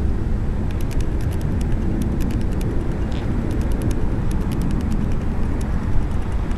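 Steady low outdoor rumble, with faint scattered high ticks through the middle few seconds.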